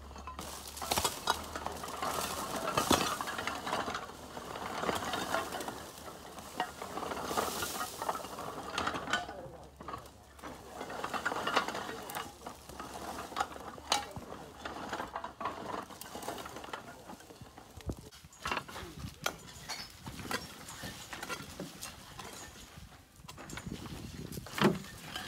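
Old clay roof tiles clattering and scraping as they are pried up and shifted on a roof, with irregular clinks and knocks of tile on tile.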